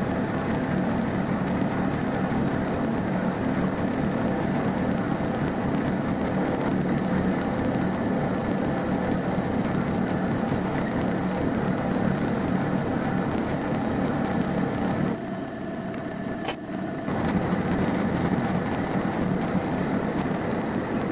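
Milling machine running an end mill through a large metal cylinder: a steady motor hum and high whine with the rough noise of the cut. It goes briefly quieter for about two seconds around fifteen seconds in, then picks up again.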